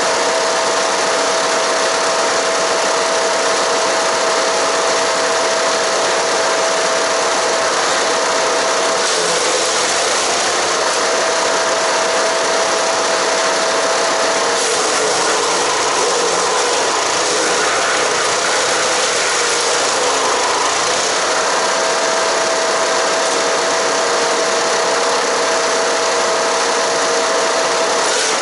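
Haige HG-15HP-GGS 15-horsepower wood chipper running and chipping cedar and cypress branches: a loud, steady engine-and-cutting din. A steady whine runs through it and drops out twice, about a third of the way in and again through the middle.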